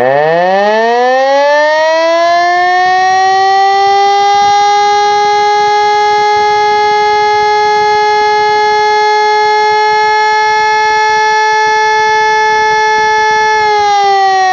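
Elektror S3A siren sounding a test alarm. It spins up, its tone rising steeply in pitch for about two seconds, then holds one steady, loud tone, and near the end begins to wind down, falling in pitch.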